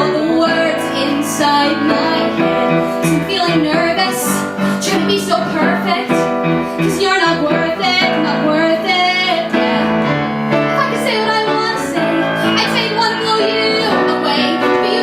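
A woman singing a song over instrumental backing with piano and keyboard.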